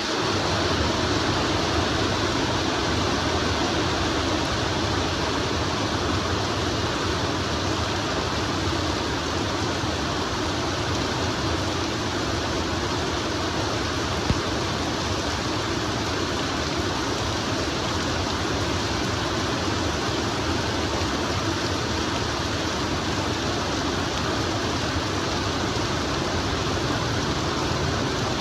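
Steady rain falling, an even, unbroken hiss of water, with one brief tick about fourteen seconds in.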